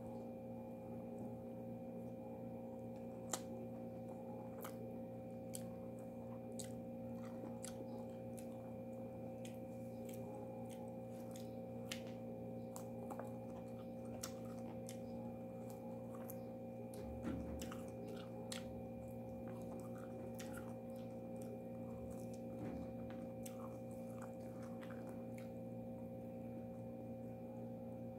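A person chewing food with small wet mouth clicks and smacks scattered irregularly, over a steady electrical hum.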